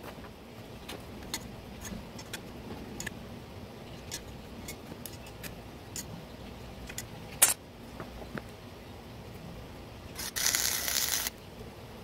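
Light clicks and taps of square steel tubing being handled and positioned on plywood, with a sharper click about seven seconds in. Near the end an arc welder strikes and runs for about a second, a crackling hiss that cuts off suddenly.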